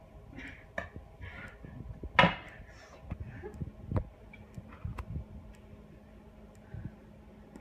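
Wire whisk knocking and scraping in a plastic mixing bowl as instant pudding mix and milk are whisked, in irregular strokes, with a louder sharp sound about two seconds in.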